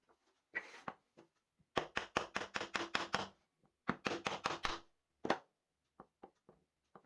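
Two quick runs of sharp knocks, about seven a second, each lasting a second or so, with a few single knocks before and after.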